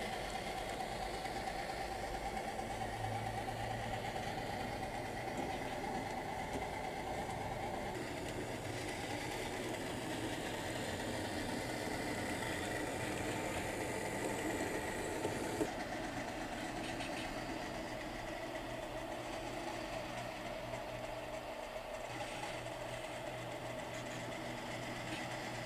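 Steady diesel engine sound from HO scale model diesel switcher locomotives, the recorded idling of a sound-equipped model, shifting in tone twice, with a single click about two-thirds of the way in.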